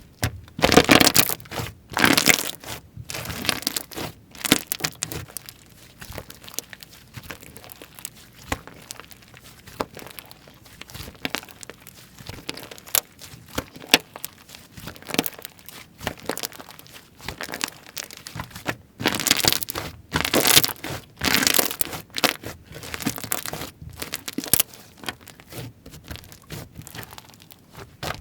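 Slime being squished and pressed by hand, popping with dense crackling clicks from trapped air. The crackling comes in bursts, loudest about a second in and again around twenty seconds in.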